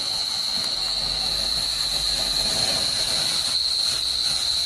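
A colour-changing ground fountain firework (a 'railway signal light') hissing steadily as it burns, switching from green to red flame. Crickets chirp steadily behind it.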